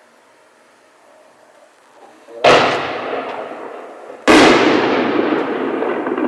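Two aerial firework shells bursting about two seconds apart. Each is a sudden loud bang trailing off into a long fading echo, and the second is the louder.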